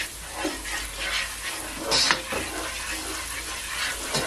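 A spatula stirring and scraping onions, garlic and curry powder around a frying pan of hot oil, over a steady sizzle. There are repeated short scrapes, with a louder one about two seconds in.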